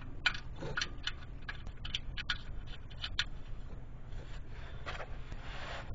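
Scattered light clicks and scrapes of an oil drain plug being threaded back into the oil pan by hand.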